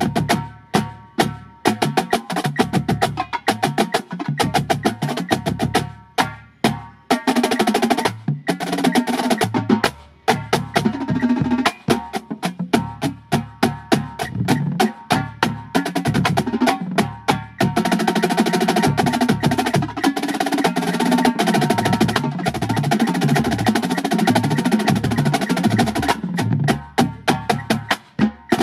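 Drum corps battery of Pearl marching snare drums, tenors and bass drums playing in unison. Sharp stick strokes alternate with stretches of fast rolls, and the bass drums sound notes at different pitches. The playing stops briefly a few times, about a second in, around six and ten seconds, and near the end.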